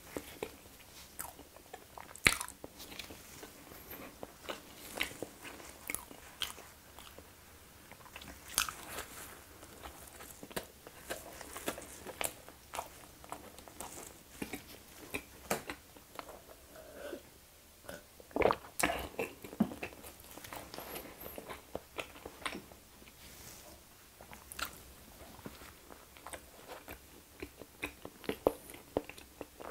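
Close-miked chewing and mouth sounds of a person eating a soft chocolate-filled conch bread: bites, wet smacks and lip clicks scattered irregularly throughout.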